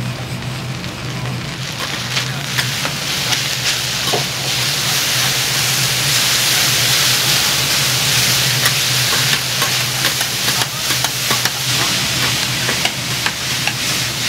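Food sizzling on a hot iron teppan griddle, getting louder about two seconds in, with scattered sharp clicks and a steady low hum underneath.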